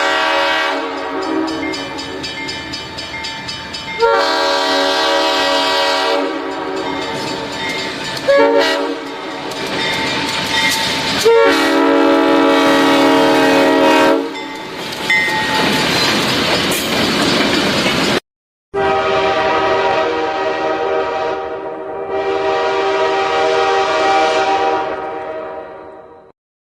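Train horns sounding in long multi-note blasts, the chord changing suddenly at about 4, 8 and 11 seconds. A brief cut-off at about 18 seconds is followed by another long blast that fades out near the end.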